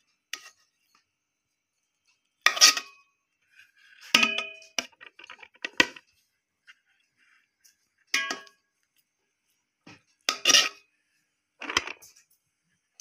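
Steel serving spoon scooping cooked biryani rice out of a metal pot, knocking and scraping against the pot with about seven ringing metallic clinks spaced a second or two apart.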